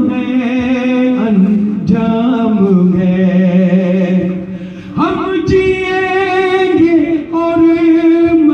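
A man singing an Urdu tribute song in long, held notes with a wavering vibrato. The melody steps down over the first few seconds, then leaps up about five seconds in.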